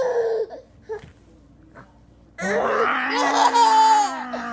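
A baby laughing while being tickled: a short laugh at the start, then about two seconds of louder laughing from about halfway in, with a lower adult voice drawn out under the baby's.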